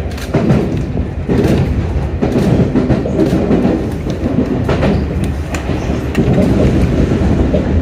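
Sotetsu electric commuter train running at speed, its wheels clicking over rail joints about once a second above a steady rumble.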